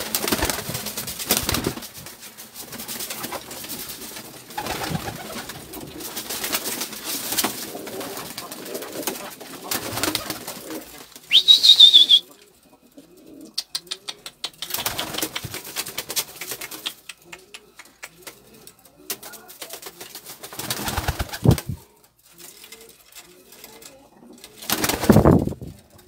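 Domestic pigeon cocks cooing over and over, with bursts of wing-flapping and scuffling on wooden perches. A short, loud, high-pitched squeal falls slightly in pitch about eleven seconds in.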